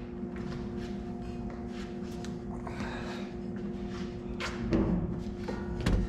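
Light clicks and knocks of metal parts and tools being handled, with two louder knocks about four and a half seconds in and near the end, over a steady background tone.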